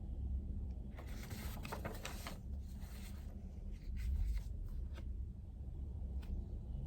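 Pen writing on paper: a quick run of scratchy strokes about a second in, then a few lighter strokes and taps, over a low steady room hum.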